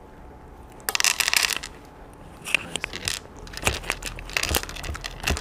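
Cooked meat being torn apart by hand on a plate, with a dense crackling about a second in. Scattered clicks and a few soft knocks follow as a corgi takes the food from the fingers.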